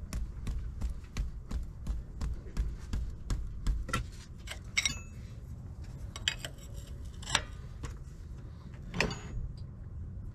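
Ratcheting wrench clicking in a quick, even rhythm of about three clicks a second as it is swung back and forth on the oil pressure sensor in a Humvee engine block, working the sensor loose. After about four seconds the clicking stops, and a few sharper metal clinks follow a second or so apart.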